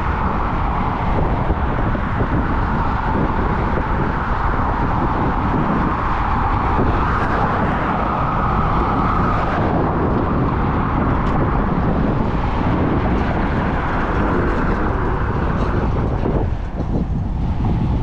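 Wind buffeting the microphone on a moving Apollo Go electric scooter, a steady rumble over the scooter's tyre and motor noise. It eases briefly near the end.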